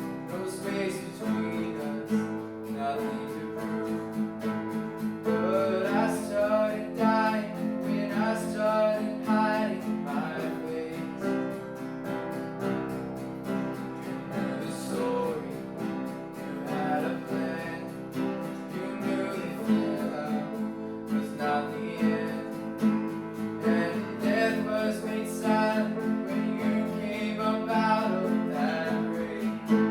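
Music led by a strummed acoustic guitar, with a wavering melody line above it from about five seconds in.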